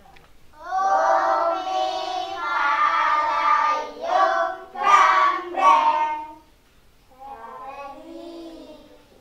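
A group of young girls singing together in high voices, with no instruments. The singing is loud for about six seconds, then goes on more softly near the end.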